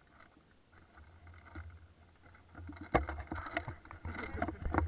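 Handling noise from a camera mounted on an airsoft rifle: quiet at first, then from about three seconds in a run of knocks and rustling as the gun is moved through the brush.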